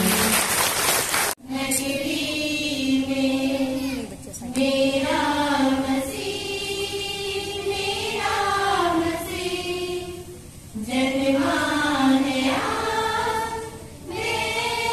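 Loud music that cuts off abruptly just over a second in. Then a choir of voices sings together in long phrases, with brief pauses between the lines.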